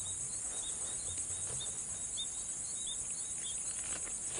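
Crickets trilling steadily in a continuous high buzz, with a string of short high chirps over it, a few a second.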